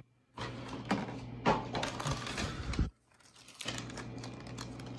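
Things being handled and shifted about in a wooden desk drawer full of computer parts and cables: scattered clicks and knocks with rustling, over a faint steady hum. The sound drops out twice briefly, near the start and about three seconds in.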